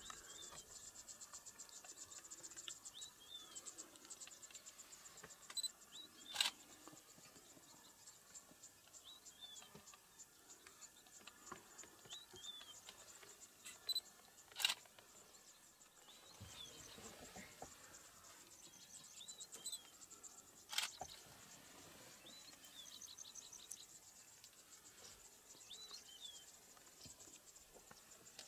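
Faint grassland ambience: insects trilling steadily and high, with short bird chirps repeating every few seconds. Three sharp clicks stand out as the loudest sounds, about six seconds in, near the middle and about two-thirds through.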